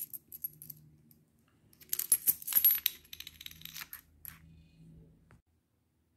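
Brazilian real coins clinking against one another and against a wooden floor as a hand slides and gathers them. A quick flurry of clinks comes about two seconds in, then a few scattered ones before the sound stops a little after five seconds.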